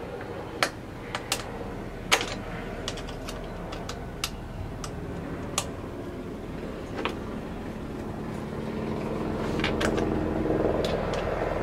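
Small tools and plastic intake parts being handled on a workbench while the MAF sensors are taken off the stock intakes: about a dozen light, scattered clicks and taps over a steady hum. A low rumble swells in the background from about eight seconds in.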